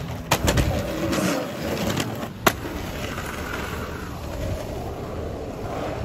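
Skateboard wheels rolling on pavement, with sharp clacks of the board just after the start and again about two and a half seconds in.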